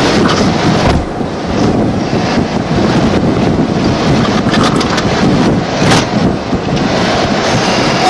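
Loud, steady rushing noise with no clear tone, dipping slightly about a second in.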